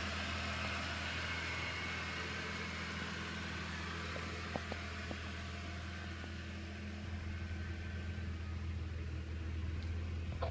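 Car engine idling steadily, a low even hum, with a couple of faint clicks about halfway through.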